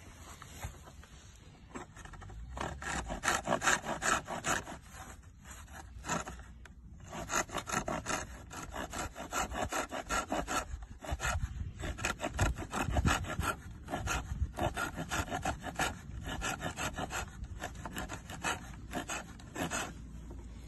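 Saw-back spine of a Daniele Mauro First Blood survival knife sawing through a thin wooden branch in quick back-and-forth strokes, about three a second, stopping briefly about six and eleven seconds in.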